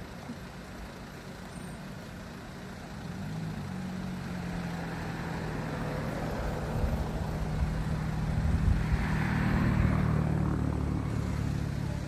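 A motor vehicle's engine running, growing steadily louder with rising tyre hiss to a peak about three-quarters of the way in, then easing off: a vehicle passing close by on the road.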